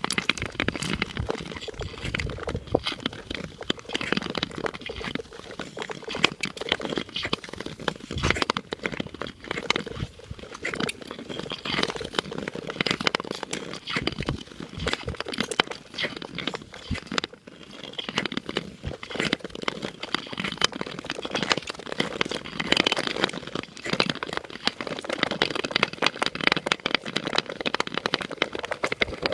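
Nordic tour skates scraping and gliding over thin, clear black lake ice, with a dense crackling of small clicks and cracks throughout.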